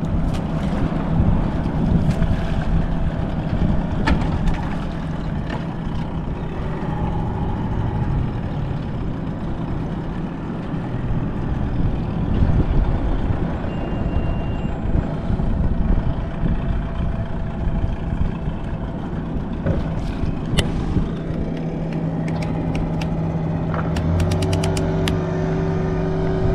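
Small outboard motor running steadily under heavy wind rumble on the microphone, with a quick run of clicks near the end.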